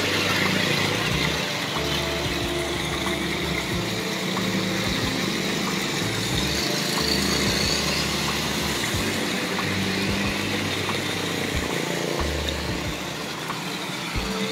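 Motorcycles and a small pickup truck driving through shallow floodwater on a road, their engines running and tyres splashing through the water, over a steady hiss.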